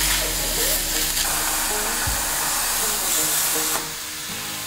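A CNC plasma table's torch cutting a metal plate, its arc giving a loud, steady hiss that stops near the end as the cut finishes. Background music plays underneath.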